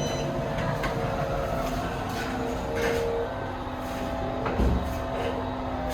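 Elevator car's ventilation fan running with a steady hum, over the low rumble of the car travelling in its shaft. A single thump about four and a half seconds in.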